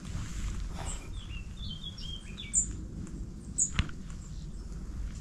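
Sand martins calling at their nesting colony in a sandpit face: a run of short, dry chattering calls, then a few brief, high, sharp chirps, over a low rumble.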